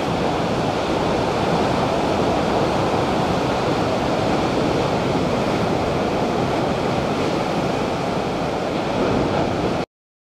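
Ocean surf breaking and washing up a sandy beach, a steady rushing that cuts off abruptly a little before the end.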